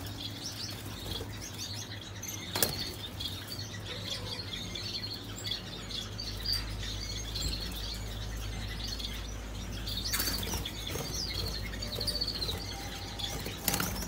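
Small aviary birds chirping over and over in short, high notes, with a few brief bursts of wing fluttering, the clearest about two and a half seconds in, about ten seconds in and near the end.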